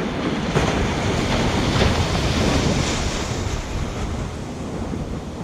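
Ocean surf washing onto the beach, with wind buffeting the microphone in a steady low rumble.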